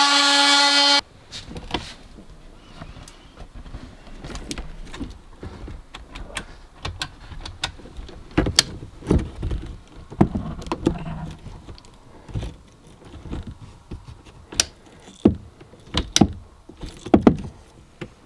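A second of music that cuts off, then irregular clicks, knocks and handling noise of hand work on interior trim pieces inside a van, the knocks sharpest in the second half.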